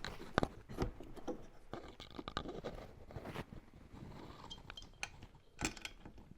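Irregular scraping, clicking and tapping of parts being handled and lined up during assembly, with a few sharp knocks, the loudest about half a second in and near the end.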